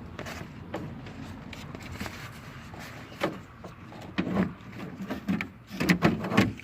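Clicks, knocks and scraping as a Ford Focus outside door handle is worked into place in the door, with a cluster of sharper knocks near the end.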